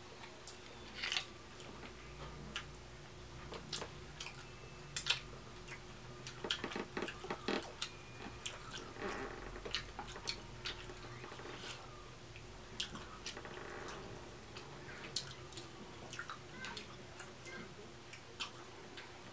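Eating a seafood boil: many scattered sharp clicks and clacks of shells being handled and pulled apart, with chewing and brief rustling.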